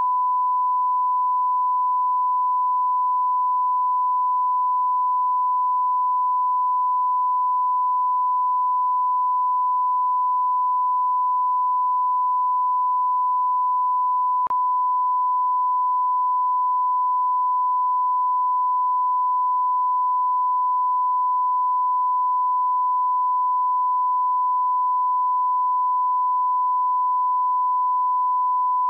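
Steady 1 kHz sine-wave test tone, the continuous reference tone played with test-card colour bars, holding one pitch at a constant level. One faint click about halfway through.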